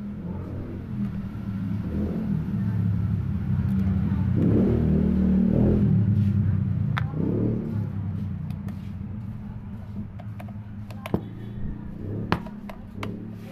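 A motor vehicle engine running as it passes by, a low drone that swells to its loudest about halfway through and then fades. A few sharp metallic clicks come near the end as a screwdriver works a screw on the fan's metal bracket.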